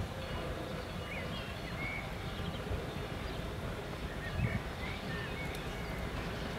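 Veteran steam train rolling slowly toward the listener: a steady low rumble with a louder low knock about two-thirds of the way in. Birds chirp briefly over it several times.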